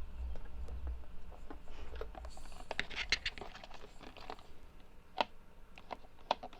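Cardboard being cut and handled: a run of short, crisp clicks and crackles, densest about three seconds in, with a low rumble of handling in the first two seconds.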